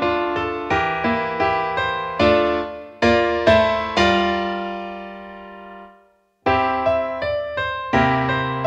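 Background piano music with notes struck in a steady pattern. About four seconds in, a chord is held and fades away to a short silence, and just after six seconds the piano starts again.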